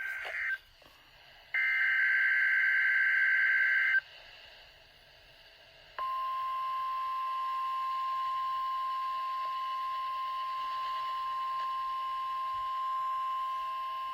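NOAA Weather Radio Specific Area Message Encoding (SAME) header data bursts, harsh buzzy digital tones, heard through a weather radio's speaker. One burst ends about half a second in, and a second lasts about two and a half seconds. From about six seconds in the steady 1050 Hz warning alarm tone plays unbroken. Together they open the Required Weekly Test broadcast.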